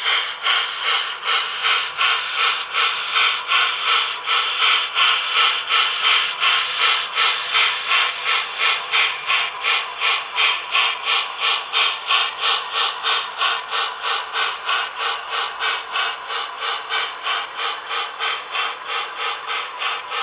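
Model steam locomotive's sound system chuffing steadily, about three chuffs a second, as the engine runs along the track.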